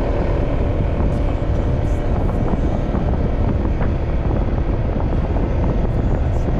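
Motorcycle engine running steadily while riding, with a dense rush of wind and road noise over the microphone.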